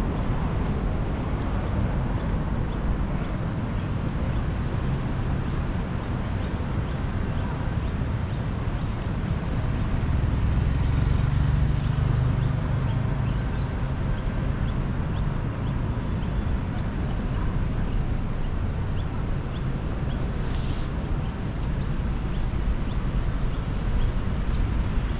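City street ambience: a steady low rumble of traffic and wind, with a short high chirp repeating evenly about two to three times a second throughout.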